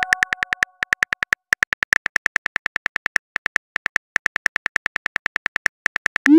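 Simulated phone-keyboard typing clicks from a texting-story app, a fast even run of about seven taps a second with brief pauses, as a message is typed letter by letter. A short rising swoosh comes right at the end as the message is sent.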